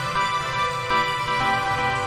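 Instrumental background music with sustained chords that change every half second or so.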